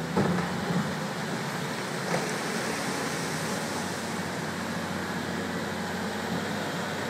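Caterpillar tracked excavator's diesel engine running as it works its bucket in the floodwater, over the steady rush of water flowing across the flooded bridge. A few knocks in the first second and one more about two seconds in.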